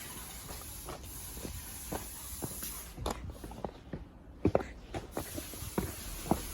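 A series of irregular soft knocks and clicks over a steady low hiss, coming more often and louder in the second half.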